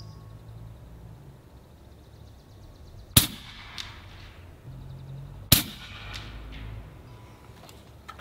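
Two shots from an Umarex Gauntlet .30 PCP air rifle, about two and a half seconds apart. Each is a sharp crack followed about half a second later by a much fainter click.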